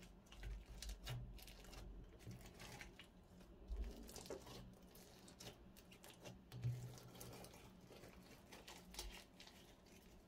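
Slime being handled: faint, irregular sticky crackling and small pops, with a few louder clicks about four seconds in and again near seven seconds.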